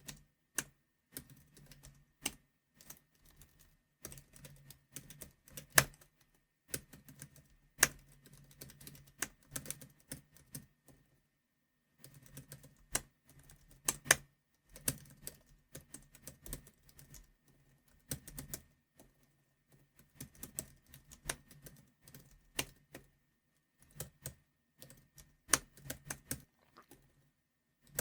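Computer keyboard being typed on in quick runs of keystrokes, broken by pauses of a second or so. A few keys are struck much harder and louder than the rest.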